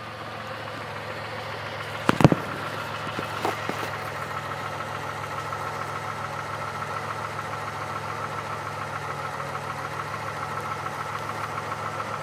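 Car engine idling steadily. There is a sharp knock about two seconds in and a couple of lighter ones shortly after.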